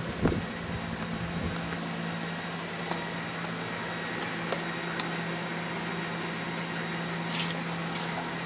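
Steady hum of an ACE KISS 104 selective solder machine running idle, its solder pot at temperature and solder fountain running, with one low steady tone throughout. A thump just after the start and a few faint clicks later.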